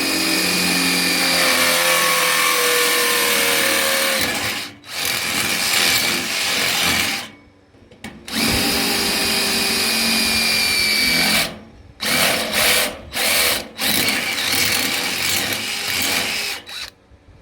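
DeWalt cordless drill boring a 10 mm hole through a metal beam. The motor whines under load in long runs with short pauses, then in several short bursts near the end as the hole is finished.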